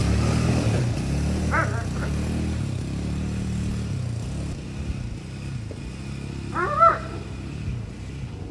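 Four-wheeler (ATV) engine running with a steady low hum that slowly fades away. A dog barks about a second and a half in, then louder near the seven-second mark.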